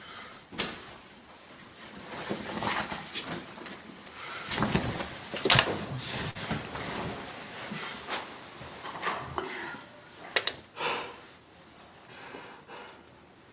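Bedding rustling and an inflatable air mattress creaking as a person climbs onto it and settles down to lie under a blanket. The movements come in irregular bursts, with a few sharp knocks, the loudest about five and a half seconds in and again about ten and a half seconds in.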